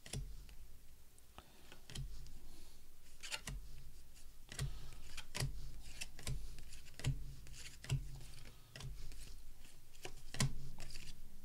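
A stack of baseball cards being flipped through by hand, each card slid off the pile with a short papery click or snap, coming irregularly about once a second.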